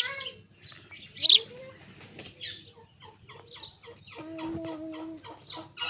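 Sparrows chirping in quick, sharp bursts. About two thirds of the way in, a lower, drawn-out call starts and runs under the chirps.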